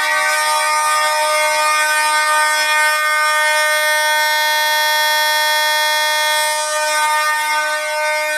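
Fire alarm horns sounding together in one continuous, steady, loud tone, with no on-off pattern.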